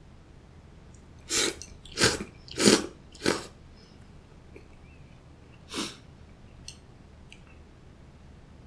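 A person slurping cold soba noodles: four quick, loud slurps about half a second apart, then a fifth a couple of seconds later. A couple of faint clicks follow near the end.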